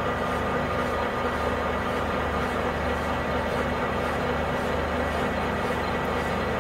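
Metal lathe running steadily at 250 RPM, spinning an aluminum workpiece in its chuck with the drill not yet cutting: a constant hum with a faint high whine.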